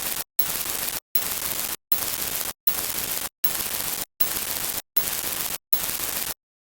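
Static hiss cut into a regular series of bursts, about eight, each roughly two-thirds of a second long with short silent gaps, stopping suddenly a little over six seconds in.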